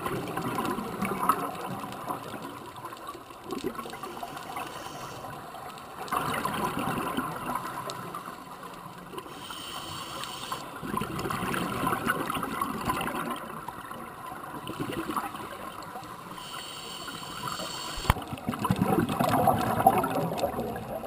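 Scuba regulator breathing heard underwater: four bursts of exhaled bubbles gurgling, each about two seconds long, spaced about five or six seconds apart. Before two of them there is a shorter hiss of air drawn through the regulator.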